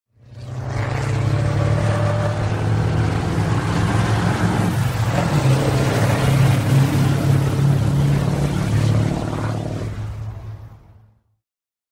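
Truck engine running steadily as it drives along, a low drone with small rises and dips. It fades in at the start and fades out about a second before the end.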